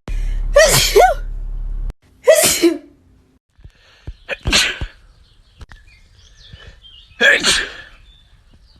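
A string of human sneezes from different people, each a short, sudden loud burst, with pauses of a second or two between them; the first two come close together over a low hum that cuts off abruptly.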